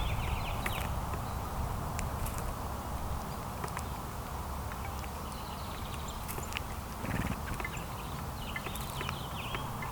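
Small birds chirping in short bursts, about a second in, again around six seconds and near the end. Scattered sharp little clicks and taps run between the chirps, over a steady low rumble.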